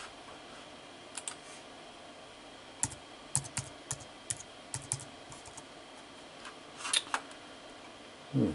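Computer keyboard typing: a search term tapped out in short runs of key clicks, with a quick run of about ten keystrokes a few seconds in and a louder cluster of clicks near the end.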